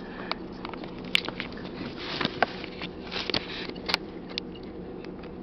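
Steady hum inside a car, with scattered small clicks and rustles over it.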